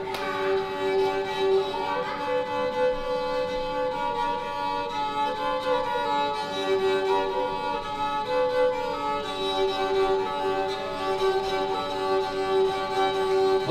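A small wooden folk fiddle, held upright on the knee and bowed, playing a slow melody over a steady drone note.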